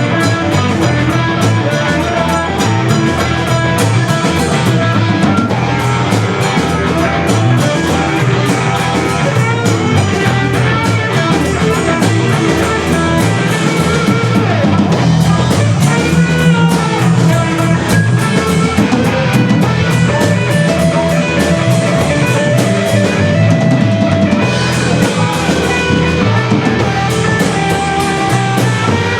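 Rock band playing an instrumental passage, with a drum kit keeping a steady beat under guitar.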